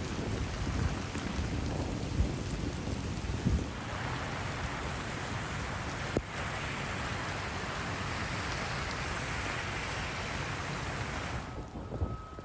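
Steady rushing noise of heavy rain and water on the street. It grows brighter about four seconds in, has a single click a little after six seconds, and cuts off abruptly shortly before the end.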